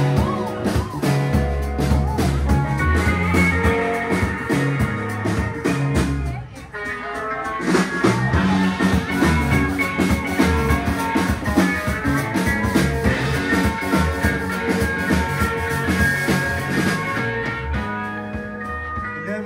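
Live rock band playing an instrumental passage on electric guitars and drum kit. The band drops out briefly about six and a half seconds in, then comes back in full; the cymbals stop near the end.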